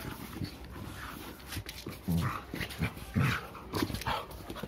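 A dog vocalising in short bursts as it plays with a football, about five brief sounds in the second half.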